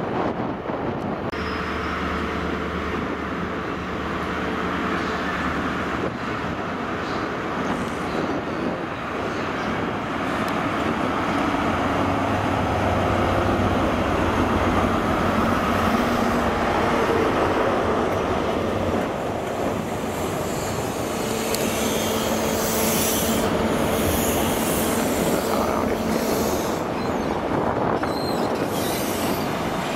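Class 43 HST diesel power car running with a steady hum, then the train pulling out of the platform, its coaches rolling past with a rising rail noise in the second half.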